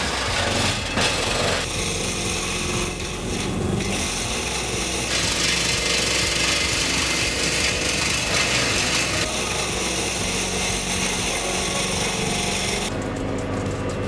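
Battery-electric woodchipper chipping leafy branches: a continuous grinding of wood being pulled in and cut, its character shifting every few seconds.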